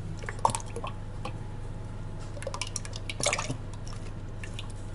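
Kitchen handling sounds: a few sharp taps of a chef's knife on a plastic cutting board, then heavy cream poured from a carton into a plastic measuring cup, with scattered clicks and drips. A steady low hum runs underneath.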